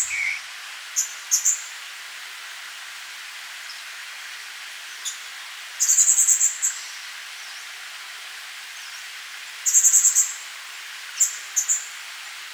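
Small songbirds calling: two high, fast trills of rapid notes, each under a second long, and a few short sharp chips between them. A steady hiss of outdoor background noise runs underneath.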